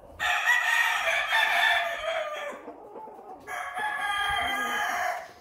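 Rooster crowing twice, each crow lasting about two seconds, with a short gap between them.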